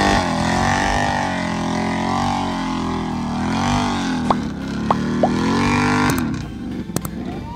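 ATV engine revving hard while the machine churns through a deep mud pit, its pitch rising and falling as the throttle is worked. There are a few short, high chirps about four to five seconds in, and the engine falls away about six seconds in.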